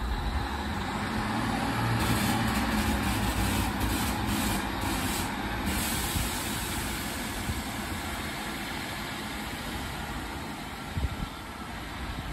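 Class 150 diesel multiple unit's diesel engines running under power as the train pulls away, loudest a couple of seconds in and then slowly fading as it draws off.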